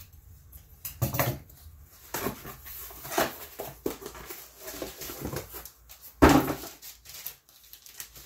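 Box cutter slicing packing tape and cardboard, with scraping and rustling of the package in irregular strokes, and one loud thump about six seconds in.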